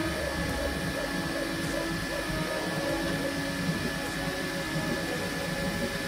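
Bambu Lab X1 Carbon 3D printer printing: its stepper motors give quick rising and falling chirps, several a second, as the toolhead darts back and forth laying down a layer, over a steady high tone.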